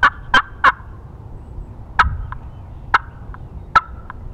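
Slate turkey pot call worked with a wooden striker. It opens with the last three notes of a fast run of yelps, then gives single sharp notes a little under a second apart, each followed by a faint tick.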